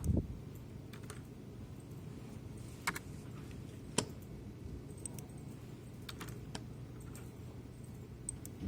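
Computer keyboard keys clicked now and then, a few separate sharp clicks spread over several seconds, over a steady low hum.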